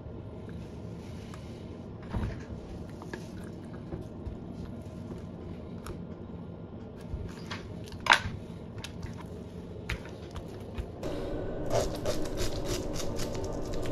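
A raw tilapia being cut and cleaned by hand. Scattered short scrapes and clicks, with one sharper knock about eight seconds in, then a fast run of scratchy scraping strokes near the end.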